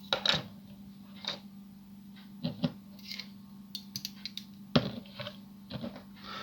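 Small plastic toy parts and tools handled on a workbench: scattered light clicks and taps, the loudest a knock near five seconds in, over a steady low electrical hum.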